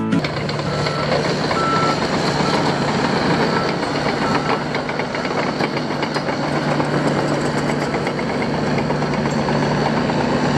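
Diesel engine of a small crawler dozer running steadily as it works past, with light track clatter in the middle. A reversing alarm beeps about once a second in the first few seconds, fading out.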